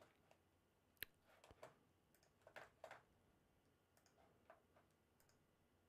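Near silence: quiet room tone with a few faint, scattered clicks of a computer mouse.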